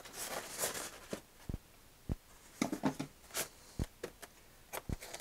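Polystyrene foam packaging being handled and its lid pulled off: bursts of foam rubbing and scraping, with several short, soft knocks.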